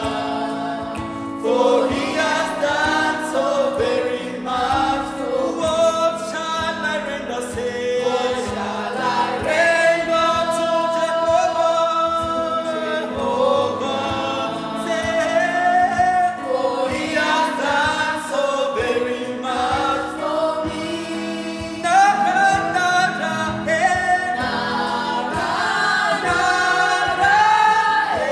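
Gospel song: a group of voices singing together over sustained instrumental accompaniment with a steady beat.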